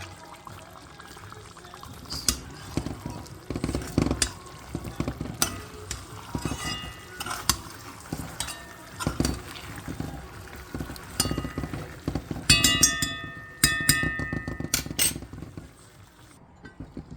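Utensil clattering and clinking against a cooking pot during stirring, with a run of sharp, ringing metallic clinks near the end.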